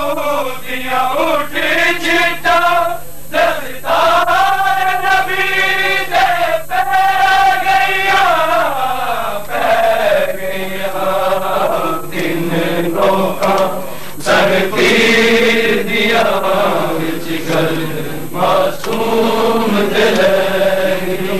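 Men chanting a noha, a Punjabi Shia lament, together in long held, drawn-out lines; the chant drops to a lower pitch about ten seconds in.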